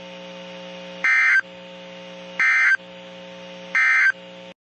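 Emergency Alert System end-of-message data bursts: three short, loud, warbling digital squawks about a second and a half apart, marking the end of the severe thunderstorm warning. A steady hum from the receiver runs underneath, and the audio cuts off just after the third burst.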